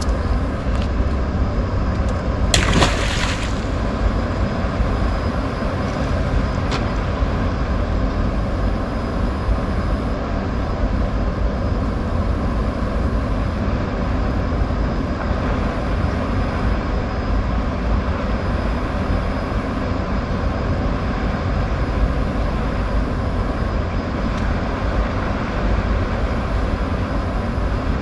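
A blue catfish splashing into the river once, about three seconds in, as it is released by hand, over a steady low rumble.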